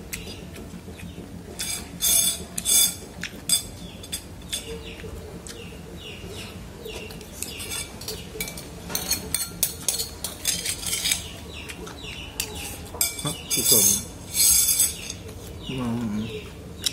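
Wooden chopsticks clicking and scraping against a ceramic rice bowl as rice is shovelled in and eaten, in several short loud bursts, with small birds chirping repeatedly in the background.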